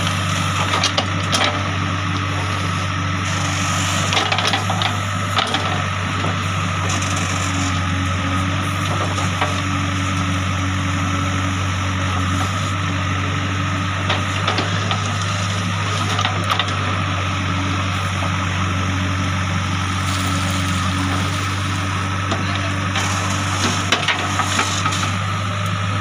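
JCB 3DX backhoe loader's diesel engine running steadily under load as the backhoe digs, with scattered knocks and clatter of soil and stones.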